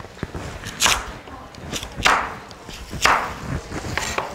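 A chef's knife chopping through a skin-on sweet potato onto a cutting board while dicing it into small cubes: three sharp strikes about a second apart, with a few lighter knocks between them.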